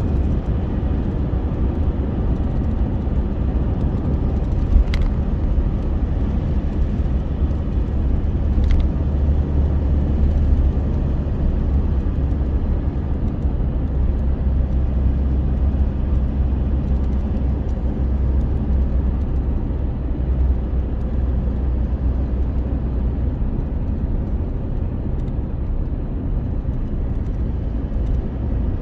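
Steady low rumble of a vehicle in motion, with two sharp clicks, one about five seconds in and one near nine seconds.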